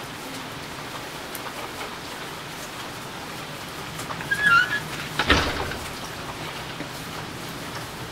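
Steady rain falling on a wet road. About four seconds in there is a short squeaky chirp, and just after it a single sharp knock, the loudest sound.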